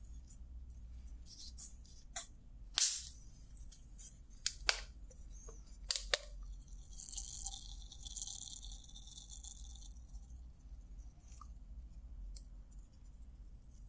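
Plastic soda bottle handled, with a few sharp crinkles and clicks, then its screw cap twisted open about six seconds in, followed by a hiss of carbonation escaping for a few seconds.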